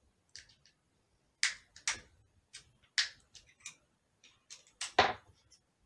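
Sharp, irregular clicks and taps of a pin punch on the Ruger PC Carbine's trigger housing as its cross pins are pushed out, the loudest click about five seconds in.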